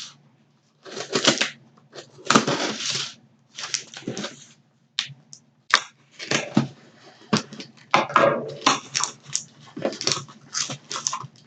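Cardboard mystery box being torn open and its packing crumpled by hand: irregular bursts of tearing, crinkling and rustling.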